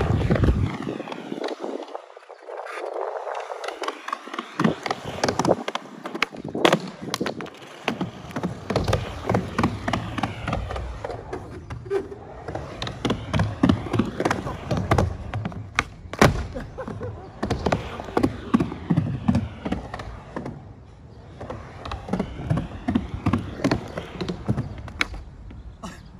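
Skateboard wheels rolling down the screwed-down panel surface of a mega ramp: a steady rolling noise with many sharp clicks and knocks as the wheels cross the panel seams.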